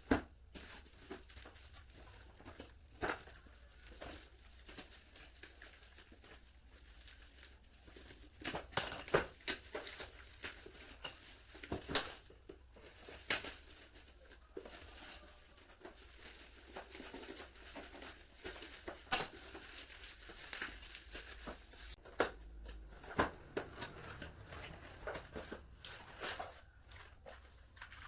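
Mechanical keyboard packaging being opened and handled: crinkling, rustling and tearing, with scattered sharp clicks and knocks, the loudest about nine to twelve seconds in and again near nineteen seconds.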